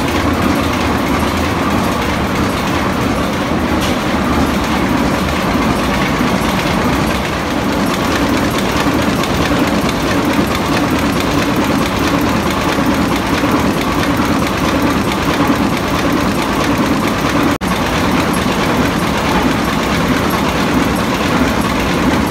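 Hanshin 6LU32G six-cylinder marine diesel main engine running steadily just after being started, a loud, even engine-room din.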